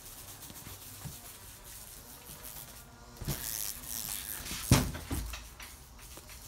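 Husky puppy's paws knocking and scrabbling against a wooden window frame and glass. There is a rustling stretch, then one sharp knock a little past halfway and a smaller knock just after.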